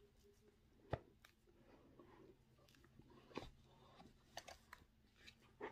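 Quiet handling of a small cardboard product box being opened: scattered clicks and taps, the sharpest about a second in, with a cluster of clicks near the end.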